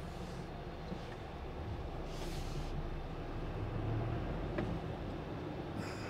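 Truck engine and road noise heard inside a moving lorry's cab: a steady low drone that swells a little past the middle, with a short hiss about two seconds in.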